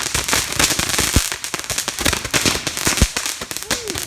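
Roman candle fireworks going off: dense, rapid crackling and popping, with two heavier thumps about a second in and about three seconds in.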